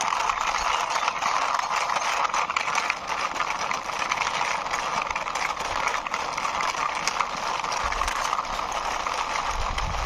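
Plastic wheels of a toy cement mixer truck rolling over a rough concrete wall top as it is pushed by hand: a steady gritty rolling noise with many small clicks and rattles.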